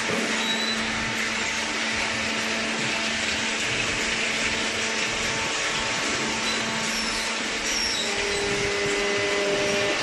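Industrial machinery running steadily: a constant hiss and hum with a few steady tones, and another steady tone joining about eight seconds in.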